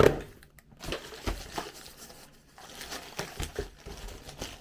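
Boxed LEGO sets being handled: rustling and crinkling with scattered light knocks, the loudest a thump right at the start.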